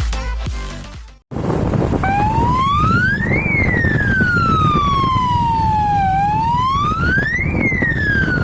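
Compact two-wheeler police siren wired to a motorbike's horn circuit, sounding a wail: the pitch climbs quickly, then falls slowly, twice in a row. It starts about two seconds in, over steady wind noise from riding at speed. Background music fades out in the first second.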